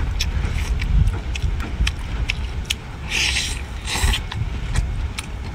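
Shellfish shell being cracked and pulled apart by hand, giving many small sharp clicks and crackles, with two loud sucking slurps about three and four seconds in as the meat is sucked out, over a steady low rumble.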